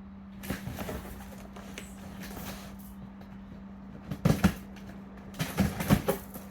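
Packaging being handled and rummaged through: scattered rustles and knocks, with louder clusters about four and six seconds in.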